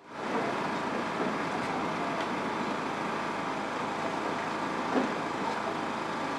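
Steady outdoor background noise with no speech, and a brief knock about five seconds in.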